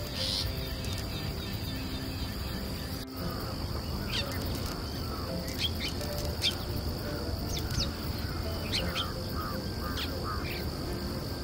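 Long-tailed shrike calling: a varied run of short sharp whistles and quick chirps, mimicking other birds' calls, mostly in the second half. A steady high-pitched drone runs beneath the calls.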